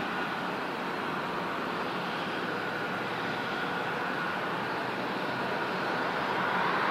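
Jet airliner engines heard as a steady rushing noise, growing a little louder near the end.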